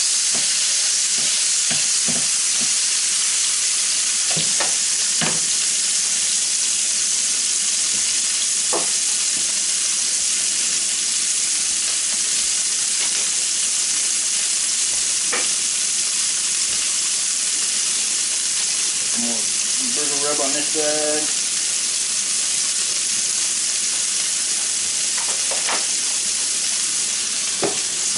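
Half-pound ground-beef burger patty frying in lard on an electric griddle: a steady, loud sizzle, broken now and then by a few light clicks.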